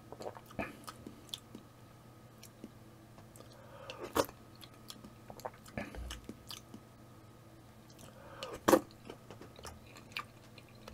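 Ramyeon broth slurped from a spoon: two loud slurps, about a second and four seconds in from the middle, roughly four seconds apart, with small mouth and lip clicks in between.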